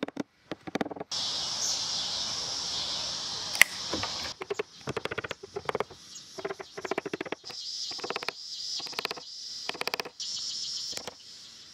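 Light hammer taps on a hardwood wedge, driving sheet cane down into the seat frame's groove, in an uneven series. A steady high insect drone runs loudly under the taps for stretches.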